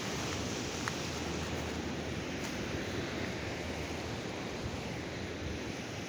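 Choppy sea surf washing against the rocks below in a steady rush, mixed with wind blowing across the microphone.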